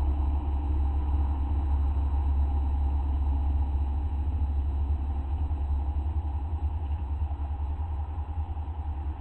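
A steady low rumble with a fainter hum above it, with no distinct clicks, calls or other events.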